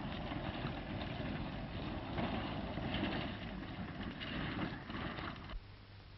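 Engine of a vintage open touring car running as the car drives, a dense rattling chug. It cuts off abruptly near the end.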